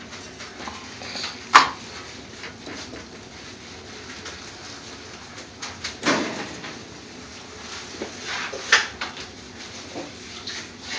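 Kitchen clatter over steady background noise: a few sharp knocks, the loudest about one and a half seconds in, with others about six and nine seconds in.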